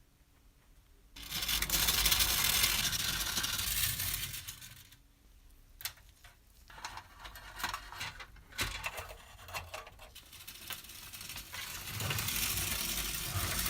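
Small metal object being handled: a stretch of scraping noise, then a run of light metallic clicks and clinks, then more scraping near the end.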